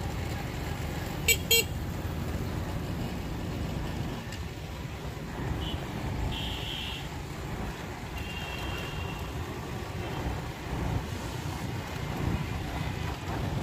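City road traffic: a steady rumble of motorcycles and auto-rickshaws going by, with two quick high horn toots about a second and a half in and a few fainter beeps around the middle.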